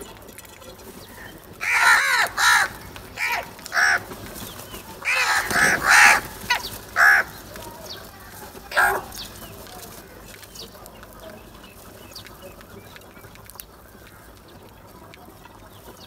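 House crows cawing: a run of about ten harsh caws, some in quick pairs, between about two and nine seconds in, then the calling stops and only faint background remains.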